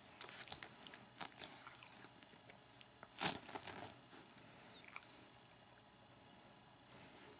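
A beagle licking and nibbling at its own body: faint wet clicks and chewing sounds, with one louder, short one about three seconds in.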